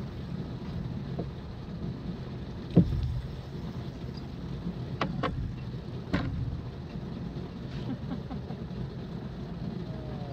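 Steady low hum of the boat's motor, with a few sharp knocks on the boat's deck. The loudest knock comes about three seconds in, and two more come near five and six seconds.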